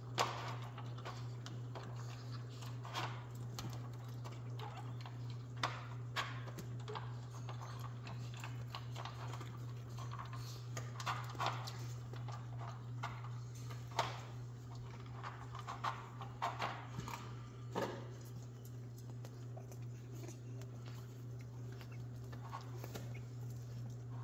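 Jack Russell Terrier puppies moving about on towels, with scattered taps and scrapes of small claws, busiest in the middle, over a steady low hum.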